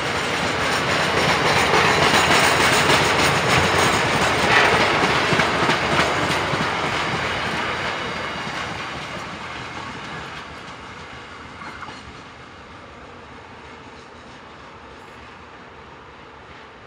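Container wagons of a freight train rolling past, wheels clattering over the rail joints. The sound fades away over the second half as the last wagon moves off.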